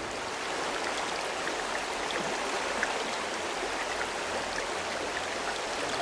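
Shallow mountain river running over a stony bed: a steady rush of flowing water with small splashes.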